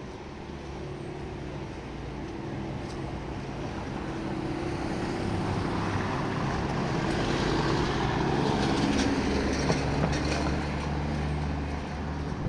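A motor vehicle's engine running close by, its hum steady and low. The noise swells as it draws nearer, is loudest past the middle and then eases off, like a vehicle passing.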